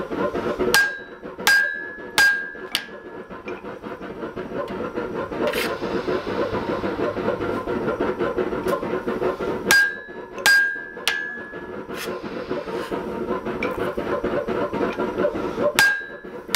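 Hand hammer striking a hot punch on an anvil, punching the eye through a red-hot wrought iron hammer head. The blows come in short bouts of up to four strikes a little under a second apart, each with a brief metallic ring, with pauses between bouts. A steady drone runs underneath.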